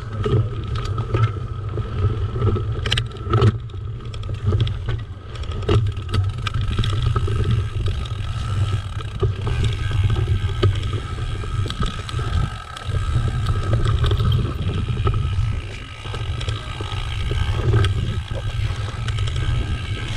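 Mountain bike riding fast along a forest dirt trail: a steady low rumble with tyre noise, and scattered knocks and rattles from the bike over bumps, most of them in the first few seconds.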